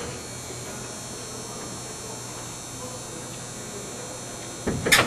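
Steady low hum, then near the end a loud, quick double clunk of the welded metal tank-bracket plate being shifted into place in the car's trunk.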